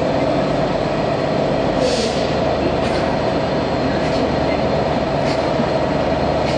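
Class 67 diesel-electric locomotive running steadily as it moves slowly, its EMD 710 two-stroke V12 engine sounding throughout. Four short high-pitched squeals, likely wheel squeal, come about two, three, four and five seconds in.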